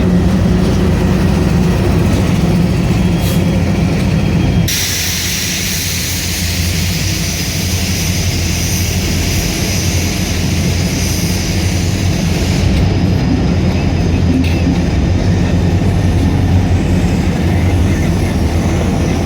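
Diesel-electric locomotive engine running steadily with a low, even hum. About five seconds in the sound changes abruptly and a strong high-pitched hiss joins it, easing off about eight seconds later.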